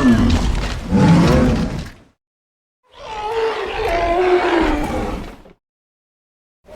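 Tyrannosaurus rex creature sound effects roaring. A deep roar comes in two pushes over about two seconds. After a short silence there is a longer, higher roar of about two and a half seconds that wavers in pitch, and another roar begins right at the end.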